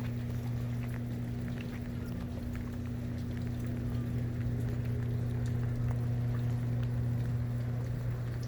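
A steady low machine hum with a faint higher tone over a light hiss and scattered small ticks; the higher tone stops near the end.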